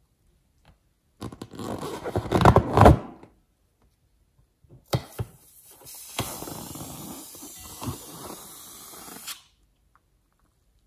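Wet, sticky squelching and crackling of slime and a latex balloon being handled, louder for a couple of seconds. Then a few sharp snips as small scissors cut the tip of a slime-filled balloon, followed by a steady hissing rustle as the balloon is squeezed.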